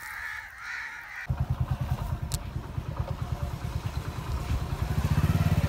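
A small engine runs with a low, even putter. It starts about a second in and grows louder toward the end.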